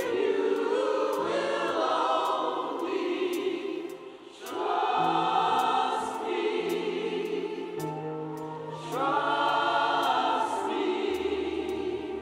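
Church choir singing slow, sustained chords over a steady low instrumental bass, in long phrases. The sound dips briefly about four seconds in before the next phrase swells back.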